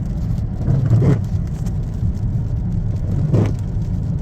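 Steady low rumble of a car heard from inside the cabin, engine and road noise. Two brief fainter sounds come about a second in and again about two seconds later.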